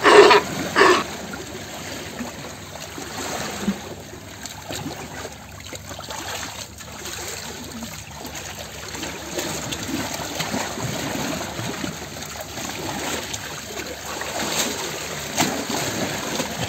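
A harbor seal pup calls a couple of times in the first second. Then comes steady water trickling and light splashing from sea otters floating and grooming on their backs.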